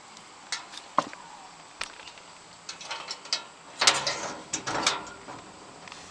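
Scattered sharp clicks and knocks with some rustling, thickest about four to five seconds in: handling noise and small knocks against the machine.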